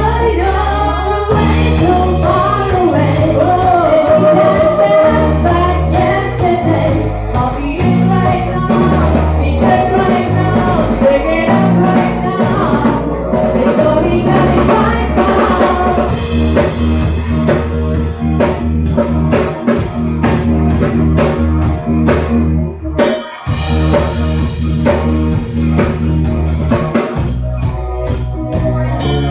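Amplified pop-rock music: a singer over electric guitar, bass and a drum kit beat.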